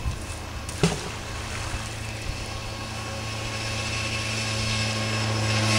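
A fishing magnet splashing into the water about a second in, then a motor engine droning steadily and growing louder as it comes closer.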